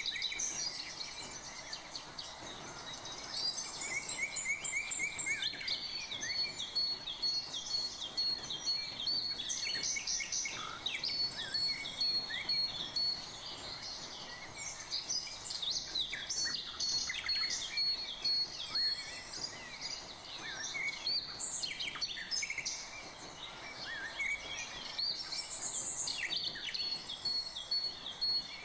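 Several birds chirping and singing, with a rapid high trill that comes and goes.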